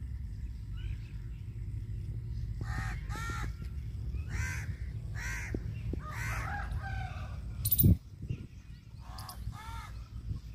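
Harsh bird caws: about seven short calls, some in pairs, over a steady low rumble. A single loud thump about three-quarters of the way through is the loudest sound.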